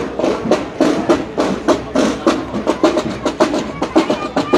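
Drums of a marching banda de guerra (drum and bugle corps) beating a marching cadence, a brisk run of sharp, even strikes.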